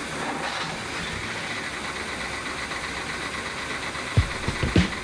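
Boat's inboard 454 big-block V8 running steadily at idle after a successful start. About four seconds in, a regular low beat starts over it.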